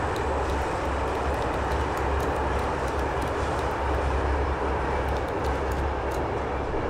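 Passenger train running, heard from inside the carriage: a steady rumble with a strong low drone.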